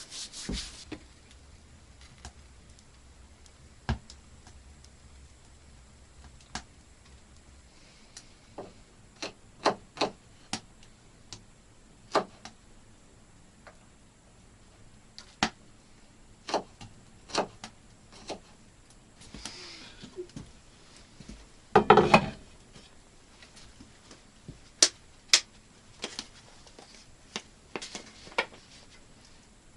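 Irregular light clicks and knocks, around twenty of them spread unevenly, with a louder cluster of knocks about two-thirds of the way through, in a small room.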